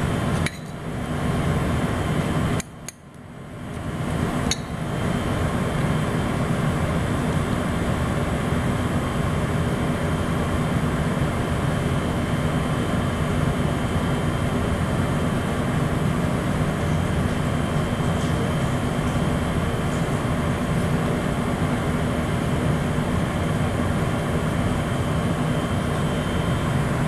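Steady machine hum and hiss, like a running ventilation fan. It drops out briefly just after the start and again for about two seconds a few seconds in, with a couple of sharp clicks.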